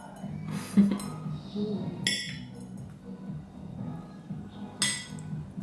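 A table knife clinking and scraping against a ceramic plate and toast while banana is sliced and spread onto bread, three sharp clinks standing out over steady background music.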